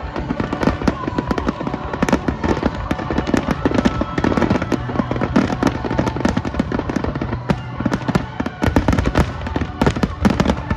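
A fireworks barrage: dense, overlapping bangs and crackles from many shells bursting one after another with no break.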